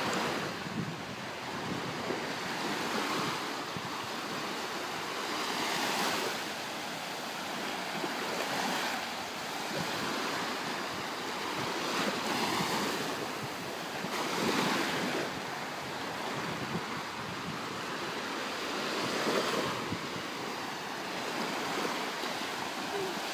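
Small sea waves breaking and washing up a sandy beach, the surf swelling and easing every two to three seconds.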